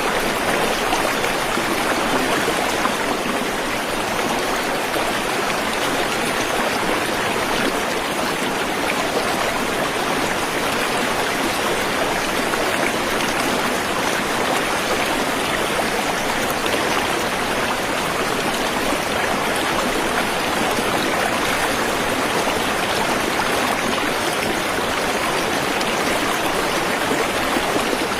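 Waterfall: a steady, even rush of falling water that holds without change.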